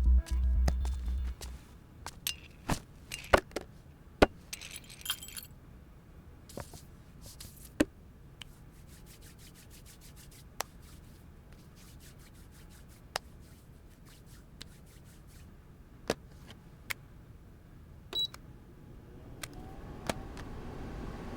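Background music with a heavy low beat stops about a second in, then a run of scattered faint clicks and knocks, with a short jingling rattle about five seconds in.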